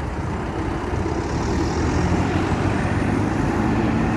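Optare Solo single-decker bus pulling away close by, its engine running under load, with a faint high whine slowly rising in pitch.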